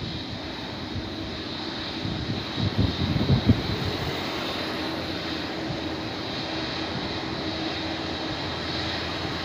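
Jet engines of a Boeing 747 freighter running steadily at low taxi power as it rolls slowly along the runway, with a faint steady tone coming in about halfway.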